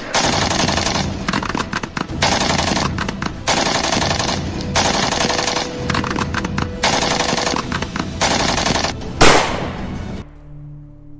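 Long bursts of rapid automatic gunfire, broken by brief pauses, ending in one single very loud shot about nine seconds in. Sad bowed-string music then begins near the end.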